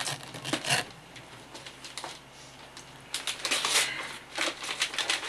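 Gift wrapping paper being torn and crumpled as a present is unwrapped, in two spells of crackling: one in the first second and a longer one from about three seconds in.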